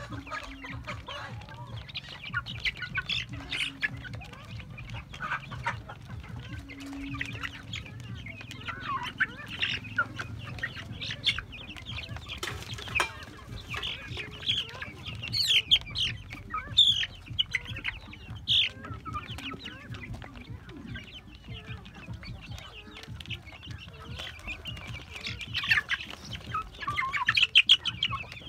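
A flock of young chickens and chicks clucking and cheeping, many short calls overlapping, busiest around the middle and again near the end.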